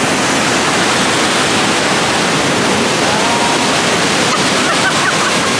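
Waterfall in high flow pouring over a dam spillway into a gorge: a loud, steady rush of water.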